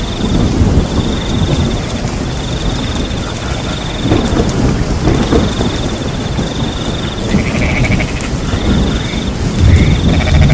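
Steady rain with a low thunder rumble that swells near the end. Over it, a cricket chirps in trills of a second or two with short gaps, and frogs croak in the last few seconds.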